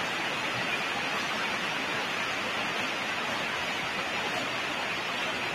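Steady hiss of background noise with no other sound.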